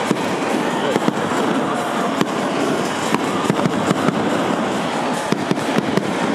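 Fireworks going off: an irregular run of sharp bangs and crackles, several a second, over a continuous dense noise.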